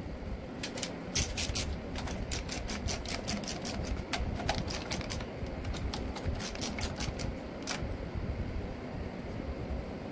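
Hand ratchet clicking in quick runs as the rocker-shaft nuts on an air-cooled VW engine's cylinder head are run down. The clicking stops about eight seconds in, over a steady low background hum.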